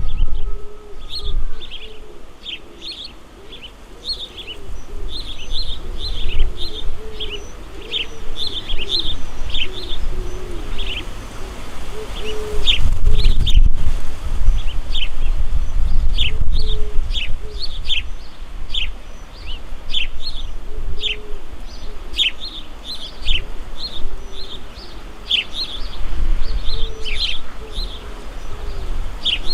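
Small birds chirping continuously in quick, short, falling notes, with lower cooing calls among them. Over it runs a low, uneven rumble that swells loudest about halfway through.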